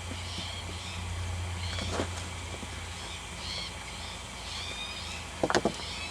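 Small birds chirping over and over above a steady low hum, with a soft knock about two seconds in and a quick run of knocks near the end as potatoes are dug out of the soil by hand.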